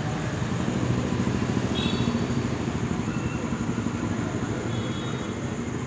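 Low, steady engine rumble, swelling slightly a second or two in, with a few brief faint high tones over it.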